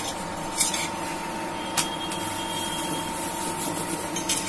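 A 24-volt battery-powered induction cooktop running under an iron tawa, with a steady hum and a constant whine. A few short clicks and knocks come over it.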